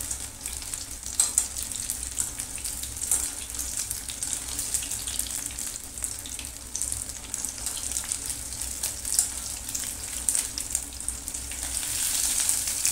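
Breadcrumb-coated paneer sticks deep-frying in hot oil in a steel kadhai: a steady sizzle full of small crackles, with a few sharper pops. The sizzle grows a little louder near the end as the pieces are turned with a wire strainer.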